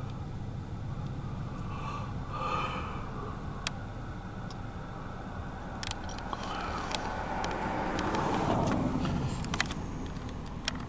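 Steady low rumble heard inside a car, with scattered light clicks. Partway through, a passing vehicle swells and falls in pitch, loudest about eight seconds in.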